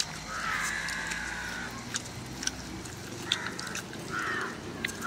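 Harsh bird or animal calls, four times: the first long, then three shorter ones near the end, with small sharp clicks in between.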